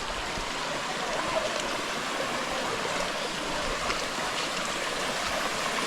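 Steady rush of water flowing down a cascading waterfall.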